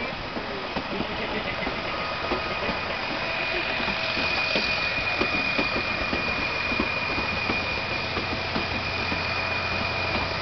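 Narrow-gauge passenger train running, heard from a carriage: the wheels knock and clatter over the rails, and a steady high wheel squeal sets in about three seconds in as the train rounds a curve.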